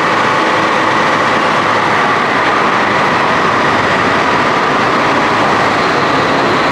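Airport apron bus engines idling in a covered bus bay, a loud, steady running noise.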